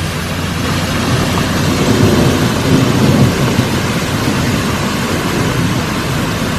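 Floodwater rushing down a rocky hillside and across a road: a loud, steady rush with a low rumble that swells a couple of seconds in.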